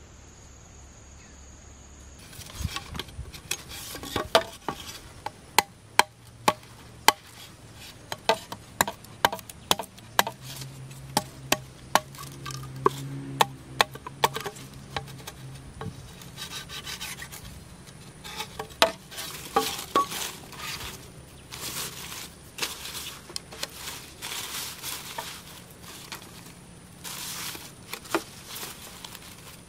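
Irregular sharp knocks and taps on wood, at times about two a second, with rubbing and rustling between them, from hand work with wood and leaves.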